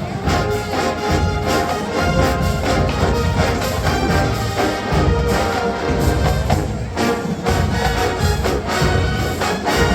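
College marching band playing full brass over a drumline with a steady beat.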